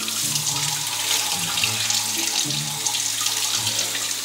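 Kitchen tap running steadily into a sink, the stream splashing over the legs and underside of a giant isopod as hands rub and rinse it clean.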